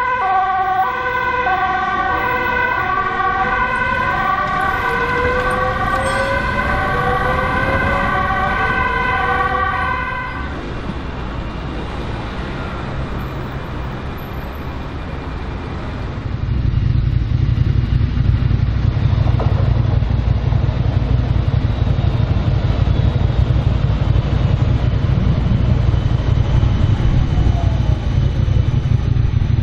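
Two-tone emergency-vehicle siren switching between a high and a low pitch about once a second, stopping about a third of the way in. After a stretch of quieter traffic noise, a steady low rumble starts just past halfway, from a modern low-floor tram standing close by at the platform.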